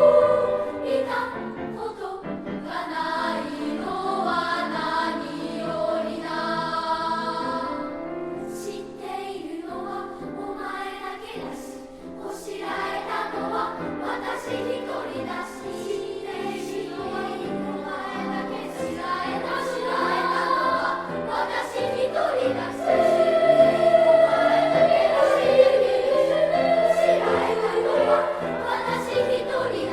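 Children's choir singing in parts. It is softer around the middle and swells louder in the last third.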